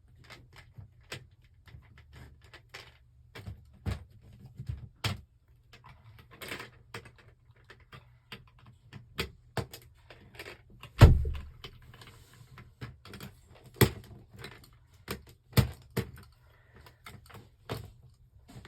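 Small plastic Lego pieces clicking, rattling and knocking as they are handled and pressed together, in irregular short taps with one louder knock about eleven seconds in.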